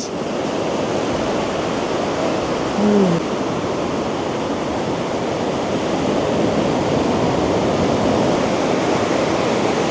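Ocean surf washing onto a beach, a steady rushing noise. A brief voice is heard about three seconds in.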